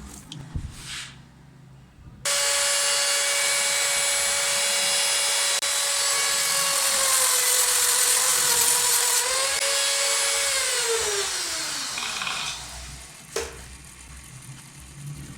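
Mini grinder (small high-speed rotary tool) switched on abruptly with a steady high whine, grinding on a small motor shaft with a bright hiss. The hiss drops away, then the tool is switched off and its whine falls in pitch as it spins down. A sharp click follows.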